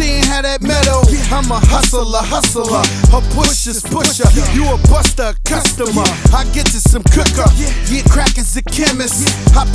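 Hip hop track: rapped vocals over a beat with deep bass notes and regular drum hits.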